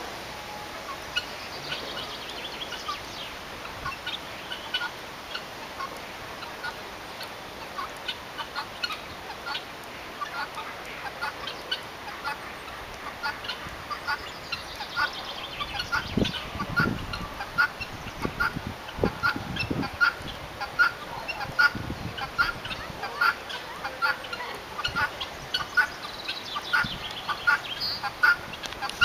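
Birds calling outdoors in a string of short, rapidly repeated fowl-like calls with a few descending phrases, growing louder and busier in the second half. A few low rumbles come about halfway through.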